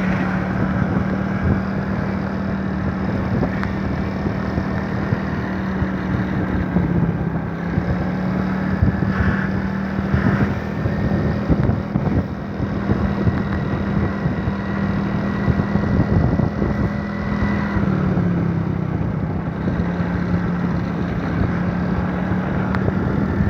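A vehicle on the move: its engine drones at a steady pitch, dipping slightly twice, under wind and road noise on the microphone.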